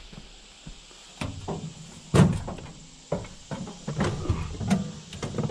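Knocks and thumps of someone climbing onto a Kubota tractor and settling into the seat, with the loudest thump about two seconds in.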